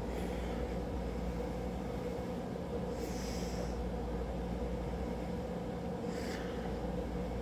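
Three short breaths or sniffs through the nose, the clearest about three seconds in, over a steady room hum.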